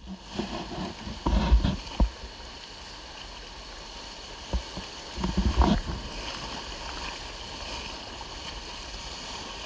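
Boat on a river: two bursts of splashing and knocks, about a second in and again around five seconds, over a steady wash of moving water.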